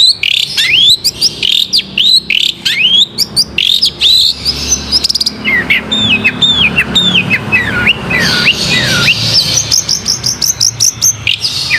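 Long-tailed shrike (cendet) singing vigorously: a rapid string of sharp upward-sweeping notes, then a run of falling notes from about halfway, then fast high chatter near the end.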